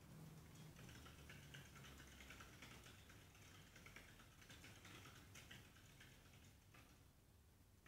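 Hamster running in its exercise wheel: faint, rapid ticking and pattering of feet and wheel, stopping near the end.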